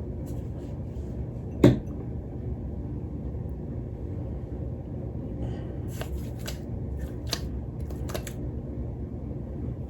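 Small handling sounds from a plastic skincare bottle and hands: one sharp click about two seconds in, then a few lighter clicks and rustles later on, over a steady low hum.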